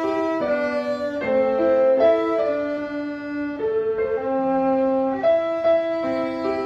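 A new violin bowed in a slow melody of held notes, with piano accompaniment; the player calls the playing a little out of tune.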